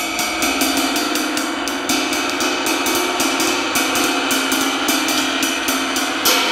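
Handmade Levite 22-inch ride cymbal played with a wooden drumstick in quick, even strokes on the bow, its wash building and ringing under the strikes; one louder stroke near the end. The cymbal is cracked, heard here before the damaged area is cut out.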